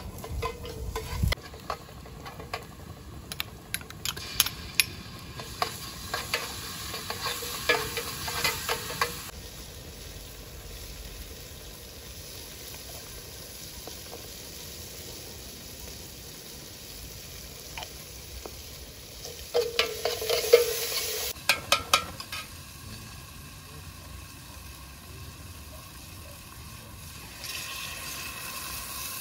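A metal spoon scraping and clinking against a steel cooking pot as food is stirred over a wood fire, in two spells of clatter with a steady sizzling hiss between them. Near the end, water pours from a kettle into the pot.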